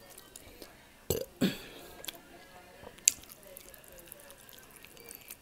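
Close-miked eating noises from a person eating pork liver steak by hand: two short mouth sounds in quick succession a little after a second in, then a single sharp click about three seconds in, with quiet between.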